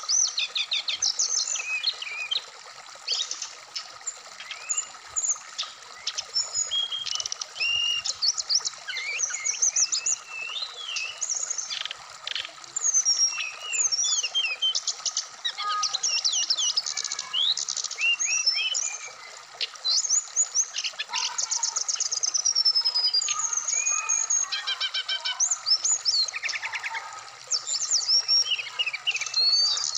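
Brown-chested jungle flycatcher singing a fast, varied song of rising and falling whistles and quick trills, over the steady rush of a rocky stream.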